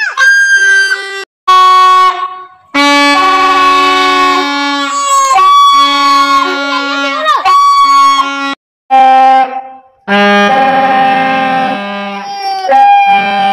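Plastic toy trumpets (baja) blown in long, loud honking notes, two or more at different pitches overlapping, with short breaks between blasts and several notes sliding down in pitch as they end.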